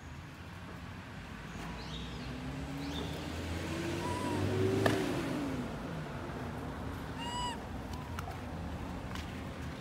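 A motor vehicle drives past, its engine note rising as it approaches, loudest about five seconds in, then dropping in pitch and fading as it moves away. A couple of short, high chirping calls sound over it.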